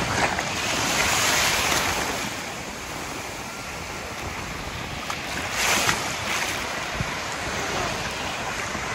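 Sea surf washing and breaking around the shallows, a continuous rushing of water that swells louder about a second in, with a brief louder wash of water a little before six seconds.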